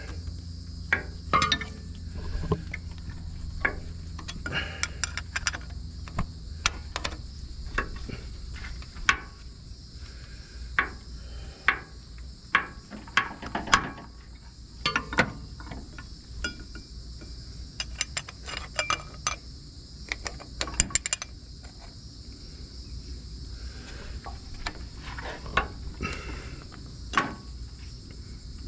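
Irregular metal clicks, clinks and knocks of hand tools working on a car's battery cable terminals, over a steady high-pitched chirring. A low hum stops about six seconds in.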